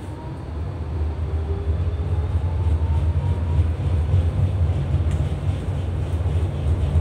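Tram running along street track, heard from inside the car: a low rumble that grows louder over the first second or two and then holds steady, with a faint whine rising slightly in pitch.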